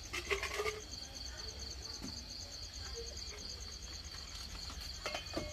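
Crickets chirping in a steady, high, rapidly pulsing trill, with a few brief knocks near the start and again near the end.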